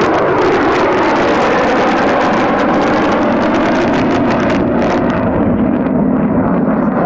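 Loud jet noise from the F-22 Raptor's two F119 turbofan engines as the fighter flies its demonstration. The high hiss drops away about five seconds in while the low noise carries on.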